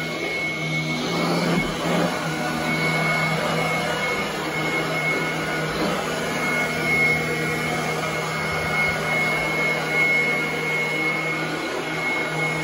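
Royal commercial upright vacuum cleaner running steadily while pushed over carpet, its motor giving a constant low hum with a steady high whine on top.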